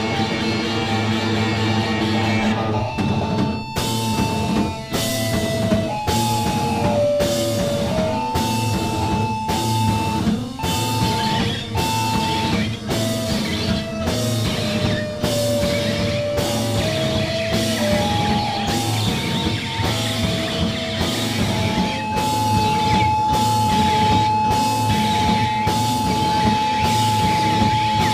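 Live rock band playing loud: electric guitar alone at first, then the drums come in about four seconds in with heavy hits about once a second. Above them runs a lead melody of held notes that ends on one long sustained note.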